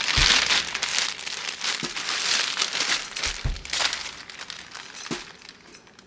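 Plastic bags or food packaging being handled, crinkling and rustling in irregular bursts, loudest in the first second and again a couple of seconds in, then dying down.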